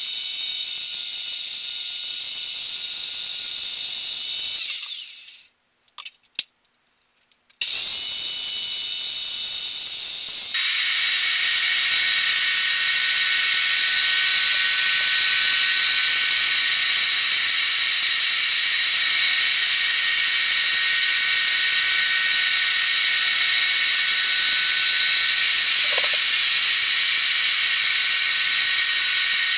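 Benchtop table saw running, a steady high whine over hiss. The sound drops out for about two seconds around five seconds in. From about ten seconds in it turns louder and fuller as the blade rips a wooden board.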